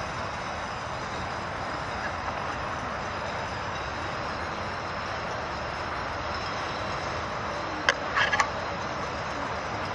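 Steady outdoor background noise, an even hiss like distant traffic or wind, with a quick cluster of three or four sharp clicks or knocks about eight seconds in.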